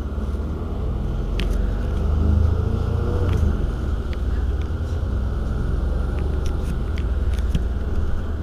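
Iveco Urbanway 12 city bus engine idling while stopped: a steady low rumble that swells a little about two seconds in, then holds, with scattered faint clicks.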